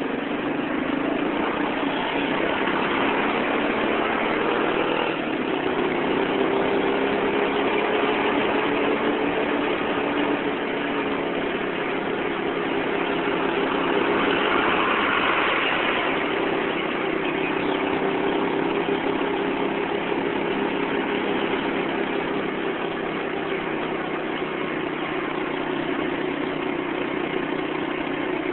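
Vehicle engine running steadily at low speed in dense road traffic, its pitch drifting slowly up and down, over a constant rush of traffic noise; the traffic noise swells briefly about halfway through as a truck passes close by.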